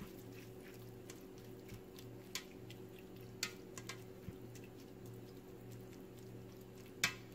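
Spatula stirring ground beef and tomatoes in a stainless steel multicooker pot: faint, scattered scrapes and soft taps against the pot, with a sharper clack near the end, over a steady low hum.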